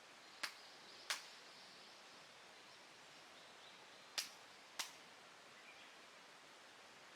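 Two pairs of sharp hand claps, the two claps of each pair a little over half a second apart and the pairs about three seconds apart: the ritual double clap of prayer at a Shinto shrine.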